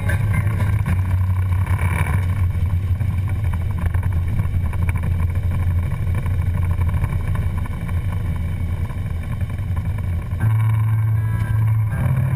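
Harley-Davidson Road Glide Custom's V-twin engine running steadily at road speed, a deep rumble under wind rush, heard from a camera mounted on the handlebars.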